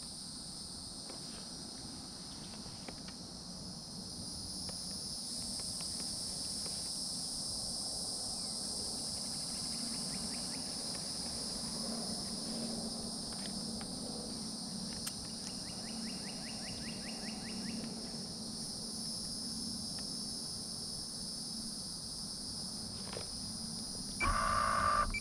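Steady chorus of insects: a continuous high-pitched drone. A brief louder sound comes about a second before the end.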